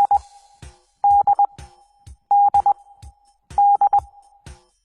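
Morse code letter D (dah-dit-dit) sent as a steady beep tone, repeated three times about a second and a half apart, the tail of a fourth just ending as it begins.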